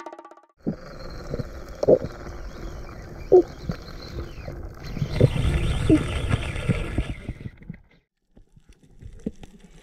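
Muffled underwater rumble picked up by an action camera in its housing, with scattered sharp pops and short bubbling blips as a diver swims with a speargun. It stops about eight seconds in, followed by a few faint clicks.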